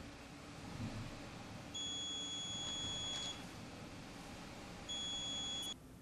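Gastech GX-82 gas monitor sounding its alarm: two long, steady high-pitched beeps, the first about a second and a half long and the second shorter, as the carbon monoxide reading climbs.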